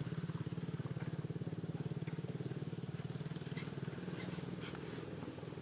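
A small engine running steadily, with a rapid even pulse. About two and a half seconds in, a thin high squeal or whistle rises and holds for a second or so.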